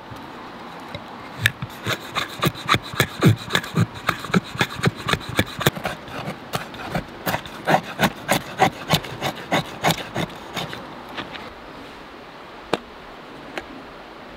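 Knife blade shaving curls off a wooden stick to make a feather stick: a quick run of short scraping strokes, about three a second, that stops about eleven seconds in, followed by a couple of faint clicks.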